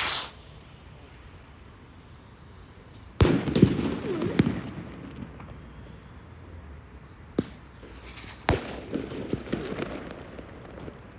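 Fireworks going off: a shell bursts with a sharp bang about three seconds in, followed by crackling and a second bang, then another bang and a run of crackles near the end.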